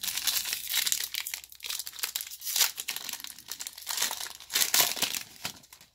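A foil trading-card pack wrapper being crinkled and torn open by hand, a dense run of crackling that starts abruptly and keeps going in uneven bursts.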